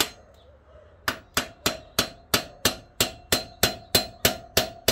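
A hammer tapping the brake pad retaining pin out of a motorcycle's rear brake caliper: one tap, a pause of about a second, then a steady run of sharp taps, about three a second.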